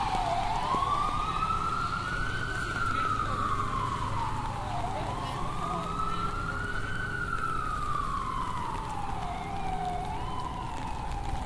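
Emergency vehicle siren in its wail mode: one tone rising and falling slowly, each rise or fall taking about two seconds, over a low steady traffic rumble.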